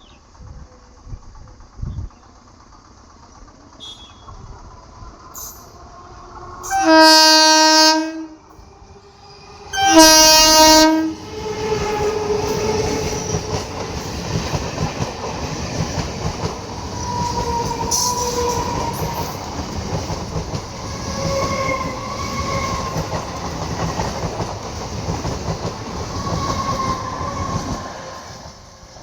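Indian EMU local train giving two loud horn blasts about three seconds apart. It then passes at speed, its wheels clattering over the rail joints with some wheel squeal, and the noise falls away near the end.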